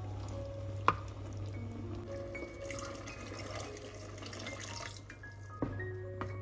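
Tomato-coloured liquid pouring from a glass jug into a pot of rice and minced meat, a splashing pour that lasts about two and a half seconds in the middle, over background music. A sharp click about a second in, and another near the end.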